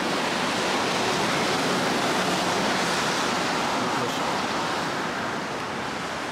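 Steady noise of street traffic along a busy city road, an even hiss with no single vehicle standing out.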